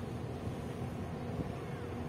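Large container ship under way, its machinery giving a steady low drone with one held hum, mixed with wind buffeting the microphone.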